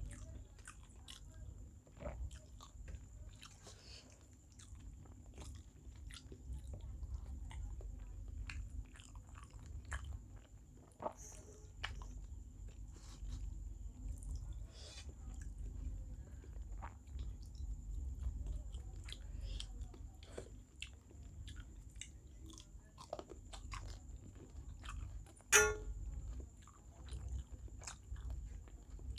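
Close-up mouth sounds of someone chewing and biting rice and small-fish curry, with many small wet clicks. Near the end comes a single sharper, ringing clink.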